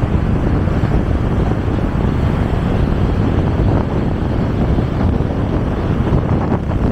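Wind rushing over the microphone of a moving rider, a loud steady low rumble with no let-up.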